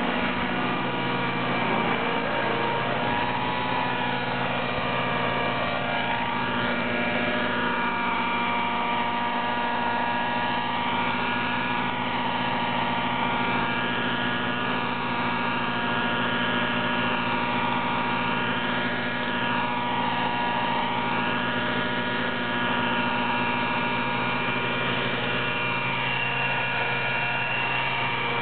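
Align T-Rex 600 Nitro Super Pro RC helicopter's nitro glow engine running steadily, with its rotor blades turning, as it hovers and flies about. The engine is being run rich during break-in. The drone holds steady, its pitch swinging slightly up and down as the helicopter moves.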